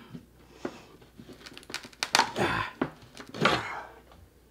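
Wooden backsplash board being pried off the drywall with a crowbar: a string of short cracks and creaks, with longer tearing scrapes about two seconds and three and a half seconds in.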